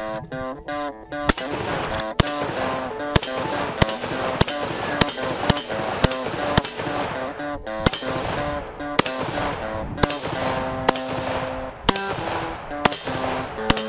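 AK-pattern rifle fired semi-automatically, about two shots a second, each shot ringing out with a short echoing tail, over background music.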